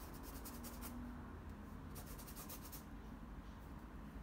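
A paintbrush laying acrylic paint onto a paper sheet: a faint run of short, repeated brush strokes.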